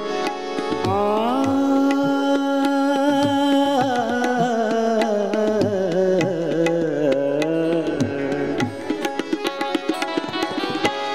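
Devotional bhajan music: harmonium and tabla, with a man's voice holding a long wordless note. The note rises about a second in, then wavers and slides downward, and the tabla strokes come to the front over the last few seconds.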